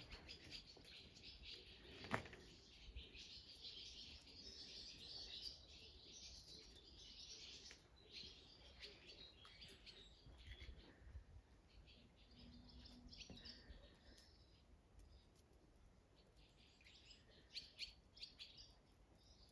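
Faint birdsong: small birds chirping and twittering, with one sharp knock about two seconds in.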